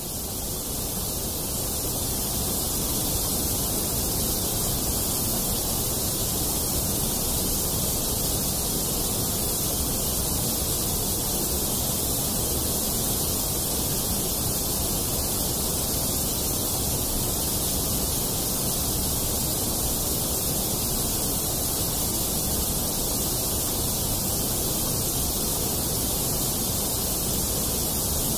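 Steady hiss of a noise track, swelling in over the first few seconds and then holding level without change. It is the kind of noise bed that a subliminal track lays over its hidden affirmations.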